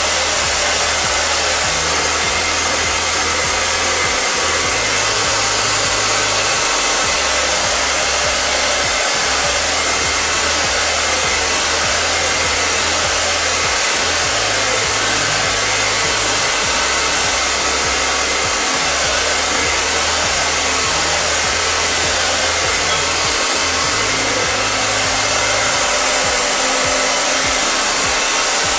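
Hair dryer on its cool setting, blowing steadily and without a break at close range.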